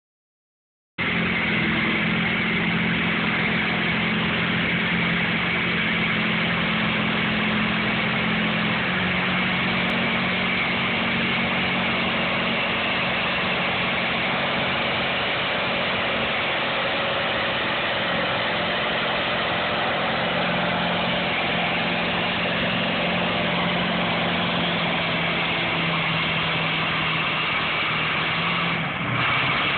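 Farm tractor's diesel engine running hard and steady under full load as it pulls a weight sled, with a slight shift in its pitch about nine seconds in.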